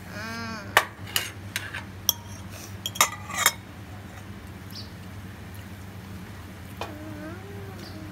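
A metal spoon or fork clinking and tapping against a nonstick frying pan as a slice of ham is moved in it, several sharp clinks in the first three and a half seconds. Brief voice sounds come just after the start and again near the end, over a steady low hum.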